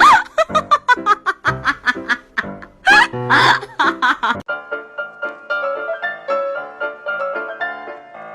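Background music: a rhythmic track with loud, high, bending voice-like sounds over it, cut off abruptly about halfway and replaced by a piano tune.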